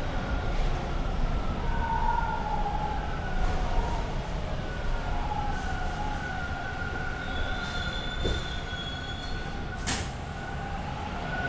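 Subway car running between stations, heard from inside: a steady low rumble of wheels on track with high wheel-squeal tones wavering above it, and one sharp click about ten seconds in.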